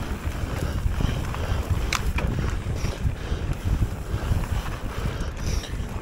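Riding noise from a mountain bike descending a dirt and gravel trail: wind buffeting the microphone over the rumble of tyres rolling on the gravel, with a few sharp clicks, one about two seconds in and another near the end.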